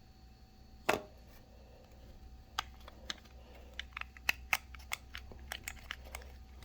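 Light plastic clicks and taps from a small remote bass knob's plastic housing being handled and pried apart by hand: one sharper click about a second in, then a quick irregular run of small clicks.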